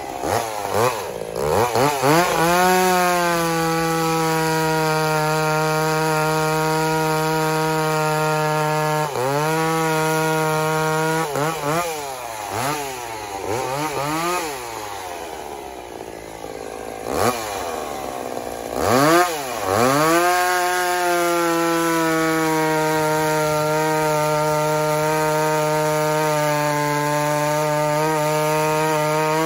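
Gas chainsaw cutting through conifer limbs and a log: the engine revs up to full throttle and holds a steady high note through a long cut, revs up and down several times around the middle with a lower idle between, then revs up again for a second long steady cut.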